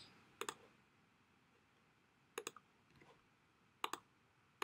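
Computer mouse clicks: about four short clicks, each a quick pair, spaced one to two seconds apart, with near silence between them.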